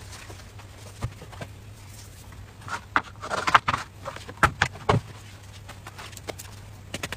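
Sharp clicks and knocks of a plastic electric crepe maker being handled, dipped in and lifted out of its batter dish, with a quick cluster of clattering taps in the middle and a few single clicks before and after. A low steady hum runs underneath.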